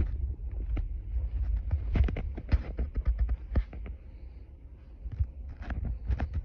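Irregular knocks and clicks, several a second, over a steady low rumble, easing off about four seconds in.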